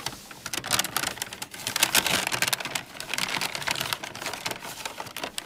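Crinkling packaging being handled and opened: a dense, irregular run of small crackles and rustles.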